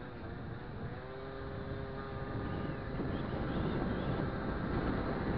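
Derestricted 50cc two-stroke scooter engine, an MBK Booster with a Pollini kit, running under the rider. It holds a steady buzzing note at first, then grows louder from about halfway through as the scooter picks up speed.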